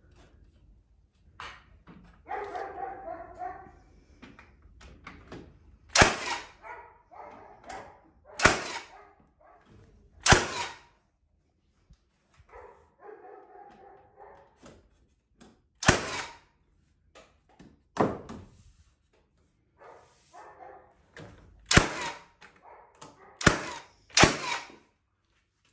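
Framing nailer firing nails into timber wall studs: about eight sharp shots at irregular intervals, with quieter handling noise between them.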